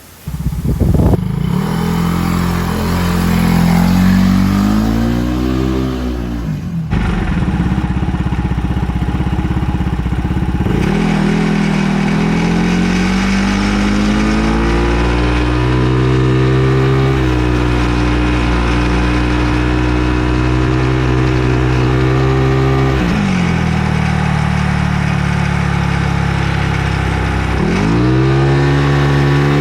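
Scooter engine running and being revved, its pitch climbing, holding and dropping off several times, falling near the middle and climbing again near the end.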